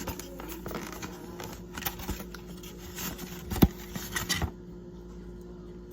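Scattered light clicks and scrapes of things handled at a table, with a sharp knock about three and a half seconds in and a short clatter just after, over a faint steady hum.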